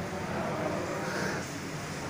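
Steady rushing background noise of a large hall where ceiling and wall fans are in view, with no sharp events.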